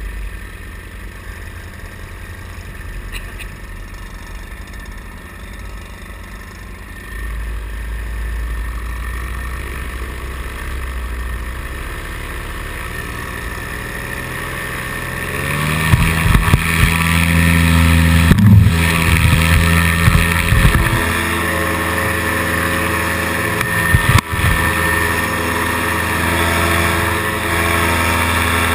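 Paramotor engine running at low throttle, then opened up to full power about halfway through, its pitch climbing, for the takeoff run. Two brief dips in power follow while it stays loud.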